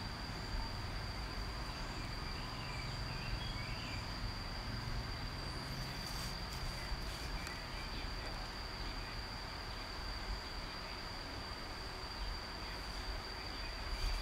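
A steady high-pitched whine over a low background rumble, with faint scratching from a ballpoint pen drawn along a ruler on folded paper.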